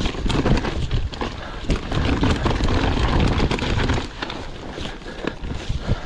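Mountain bike riding fast down a wet dirt trail: wind buffeting the microphone over tyre noise, with the bike clattering and rattling over bumps. It eases for a moment about four seconds in.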